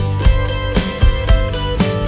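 Background music with guitar and a steady beat of about two beats a second.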